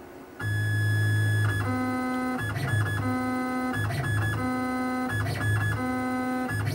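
Background music that comes in suddenly about half a second in: a keyboard tune with a repeating pattern of notes and a regular beat.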